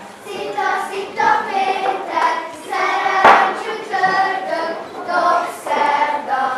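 Girls' and children's voices singing a Hungarian folk song together for a children's circle dance, in short phrases with brief breaths between them. A single sharp knock sounds about three seconds in.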